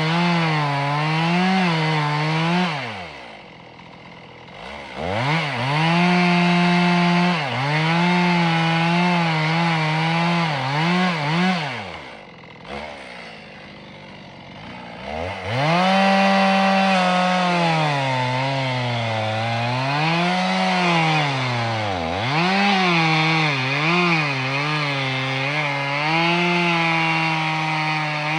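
Chainsaw cutting into a tree, its engine pitch repeatedly sagging under load in the cut and picking up again. Twice it eases off to a much quieter idle for a couple of seconds, about three seconds in and again around twelve seconds, then revs back up to cut.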